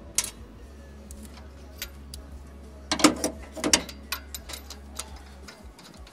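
Metal hand tools clicking and clinking as a spark plug socket on an extension is worked in a plug well of the valve cover, with a louder cluster of knocks about three seconds in, over a steady low hum.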